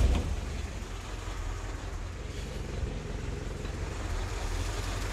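Willys jeep's L134 'Go Devil' four-cylinder flathead engine idling steadily, loudest right at the start as it settles from being fired up.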